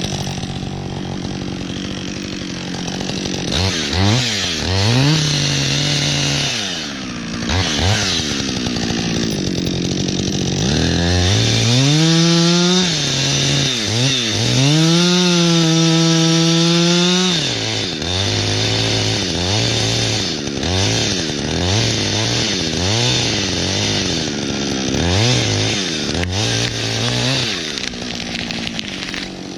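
Chainsaw engine revving up from idle to high revs and back again several times, held high for about two seconds twice around the middle. Near the end it settles into a string of short throttle blips.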